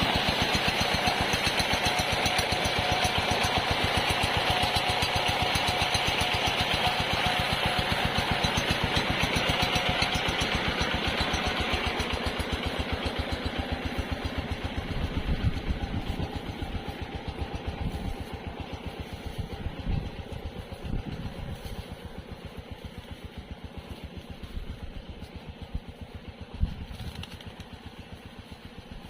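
Diesel engine driving an irrigation water pump, running with a fast, even thudding. It is loud at first, then drops in level after about twelve seconds and grows fainter toward the end, with a few louder knocks.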